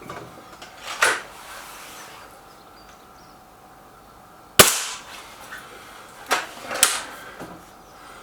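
Beeman Baycat air rifle being fired at targets: a few sharp cracks, the loudest about four and a half seconds in.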